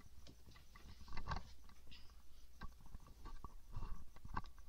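A string of small, irregular clicks and ticks close to the microphone, with a few faint soft noises between them.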